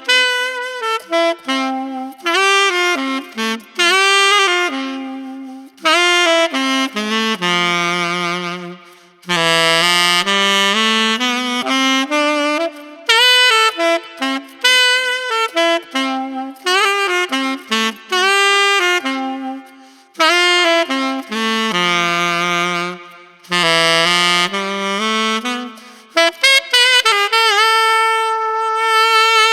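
Solo saxophone playing a melodic line of separate notes with slides between some of them and short breaks between phrases, ending on a long held note. It is recorded through a Warm Audio WA-19 dynamic microphone.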